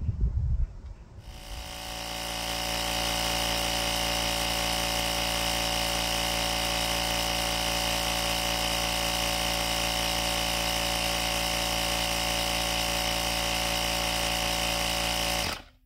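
Electric tire inflator compressor running steadily, pumping the tire above normal pressure, to about 50 psi. It starts about a second in, builds for a couple of seconds, and cuts off suddenly near the end.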